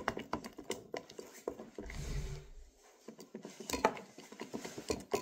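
Clicking and clattering of a utensil against a bowl as slime ingredients are stirred, with a brief low rumble about two seconds in.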